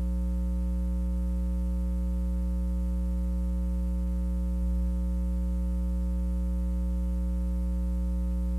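Steady electrical mains hum with a stack of overtones and no programme sound, as on the blank gap of a taped TV broadcast.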